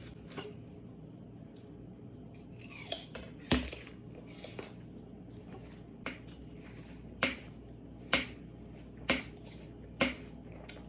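Kitchen utensils clinking and knocking against dishes: a series of short, sharp taps, spaced out at first and then coming about once a second in the second half.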